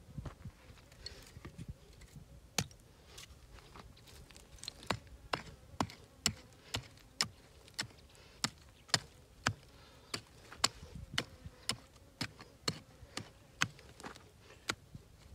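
A small hand hoe chopping into dry, stony soil, making a run of sharp clicking strikes. The strikes are sparse at first, then come about twice a second.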